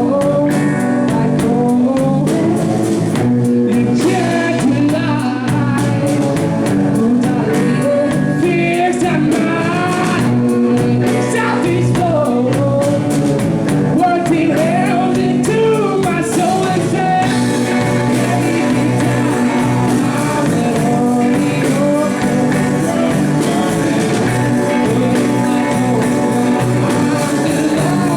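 Live bluesy rock band playing a song with a lead vocal. The singing stops a little past halfway and the instruments carry on.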